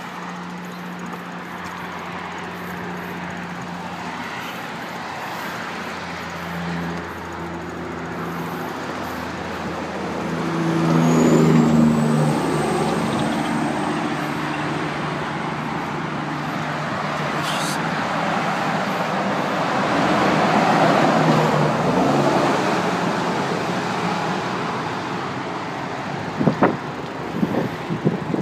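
Road traffic passing: steady traffic noise, with a vehicle's engine hum swelling about ten seconds in and again around twenty seconds. A few sharp knocks come near the end.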